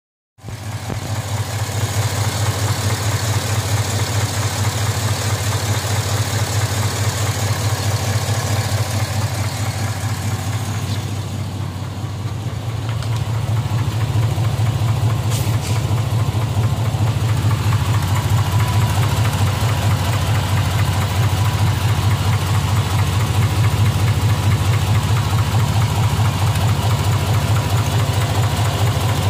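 2005 Z71's rebuilt L33 5.3-litre V8 idling with a rapid, even knock, a knock that comes only once the engine reaches operating temperature. The running dips slightly in level about twelve seconds in, then steadies.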